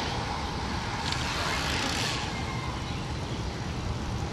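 Racing bicycles riding past close by, a hissing whir of tyres and freewheels that fades about two seconds in, over a steady low rumble.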